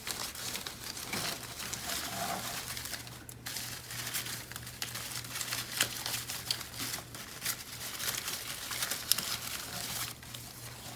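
A garland of leaves rustling and crinkling as it is handled and twisted by hand, with many small clicks.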